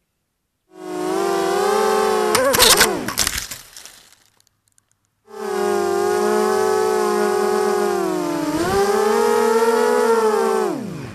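Brushless motors and propellers of a ZMR250 miniquad whining, recorded by the camera on board, the pitch rising and falling with throttle. A short burst of crackling hits comes about two and a half seconds in. After a silent gap the whine runs steady, dips near the middle, and falls away sharply at the end as the motors spool down.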